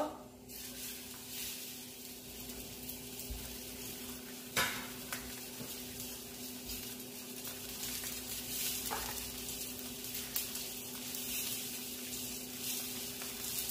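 Marinated shrimp sizzling in hot oil in a nonstick wok, a steady frying hiss. A metal spoon gives a few scattered clicks against the pan as it stirs.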